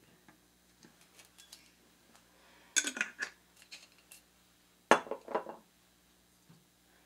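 Glass clinks and knocks from a glass bottle being capped and set down on a counter beside a small glass measuring cup: a few light clicks, a cluster of clinks about three seconds in, and a sharp knock with rattling clinks about five seconds in.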